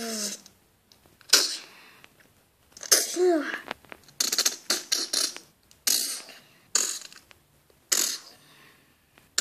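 Mouth-made fight sound effects: a series of about eight short, sharp hissing bursts, one carrying a brief falling cry about three seconds in.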